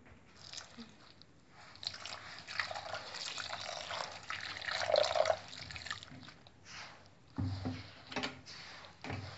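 Semolina being kneaded with warm water by a gloved hand in a bowl: gritty, wet squishing and rustling, loudest around the middle. Two dull thumps follow near the end.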